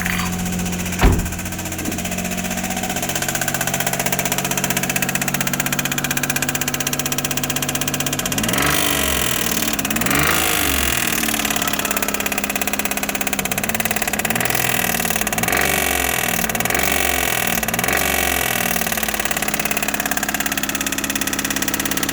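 Daihatsu Mira Gino L700S's 660 cc three-cylinder engine running with its accessory drive belt removed, a check on whether the abnormal engine noise comes from the belt-driven accessories. It idles steadily after a sharp knock about a second in, then is revved in a series of short blips, two spaced apart and then several in quick succession, before settling back to idle.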